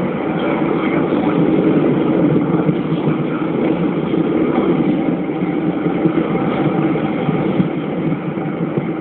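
Steady rushing roar of rocket engines during the space shuttle's ascent, its solid rocket boosters still firing.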